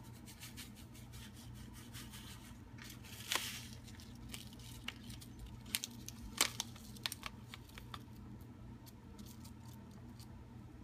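A taco seasoning packet crinkling and rustling as it is shaken and tapped out over a bowl, with scattered light crackles, a longer rustle about three seconds in and a few sharper crackles around six seconds.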